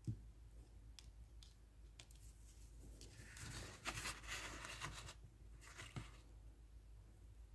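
Faint handling of a paper scratch-off lottery ticket by gloved hands. There is a light knock at the start and a few small clicks, then paper rustling and sliding from about three seconds in, with a shorter rustle near six seconds.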